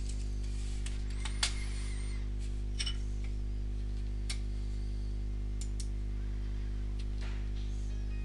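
Steady low electrical hum from the recording line, with a few scattered sharp clicks of a computer mouse.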